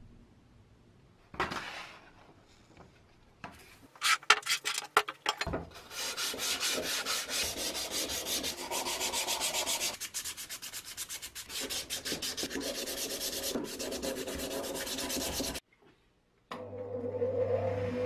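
Hand sanding of a small steel coffee-grinder part with sandpaper: a few separate strokes at first, then a long run of quick back-and-forth scraping strokes that stops suddenly. After a short pause, a steady hum starts near the end.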